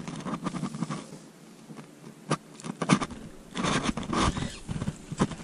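Irregular scraping and knocking of fishing tackle being handled in an inflatable boat, in a few short clusters, the loudest a little past the middle.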